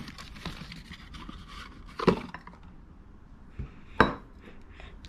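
Cardboard box handling as a new K&N oil filter is taken out, with two sharp knocks as the metal filter can is set down on a wooden workbench, the second, about four seconds in, louder.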